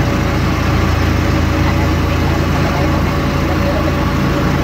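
Motorcycle engine running steadily at cruising speed, with wind and road noise.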